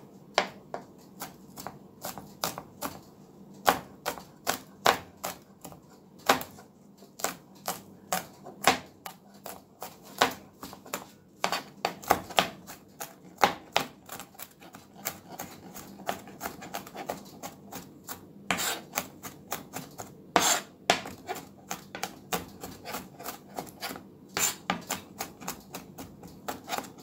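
Chef's knife mincing garlic cloves on a plastic cutting board: a run of sharp, irregular chopping taps, about two or three a second, some louder than others.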